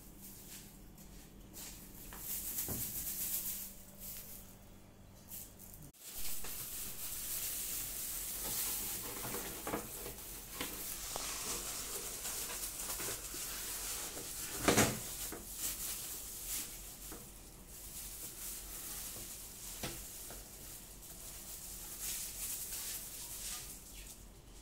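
Faint room sound, then clear plastic wrapping on a new two-burner gas stove rustling and crinkling as it is handled, with one sharp knock a little past the middle.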